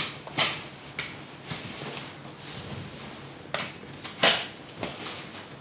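Gypsum drywall being snapped and broken along knife-scored lines. About eight short, sharp cracks come at uneven intervals, the loudest at the very start and about four seconds in.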